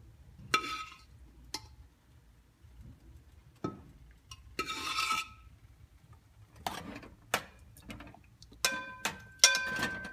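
Metal spoon knocking, scraping and clinking against a metal cooking pot while cooked toor dal is spooned in. There are scattered single knocks, a longer scrape about halfway through, and a run of ringing clinks near the end.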